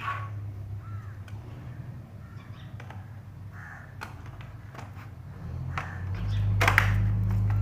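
Several short bird calls with scattered light clicks and knocks, and a low steady hum that comes in near the end.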